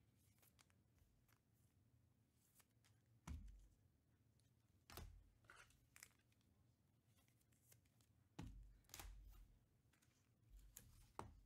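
Quiet handling of trading cards and a card pack: several soft taps and rustles over a near-silent room.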